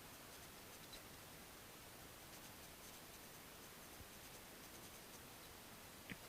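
Near silence: a faint steady hiss with a couple of faint clicks, one about a second in and one near the end.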